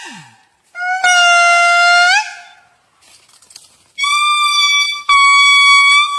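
A monkey calling in long, steady, high-pitched cries that each rise slightly at the end: one call of about a second, a brief rustle, then two higher calls back to back.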